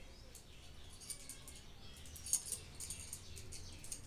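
Faint small metallic clicks and light rattling as a nut is turned by hand to unscrew it from the end of a toy ride-on car's metal rod.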